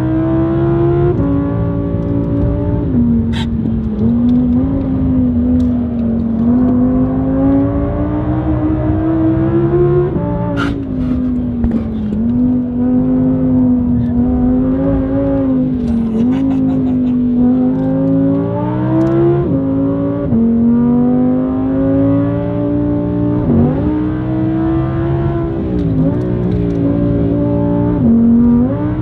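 Audi R8's 5.2-litre V10, heard from inside the cabin through an ASG valve exhaust, pulling hard at speed. The engine note climbs and drops suddenly at several upshifts, dips and rebounds twice near the end, and a couple of the shifts carry a sharp crack.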